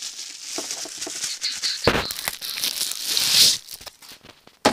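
Plastic packaging crinkling and rustling as a laptop's power adapter is unpacked, with a knock about two seconds in and a louder rustle just after three seconds.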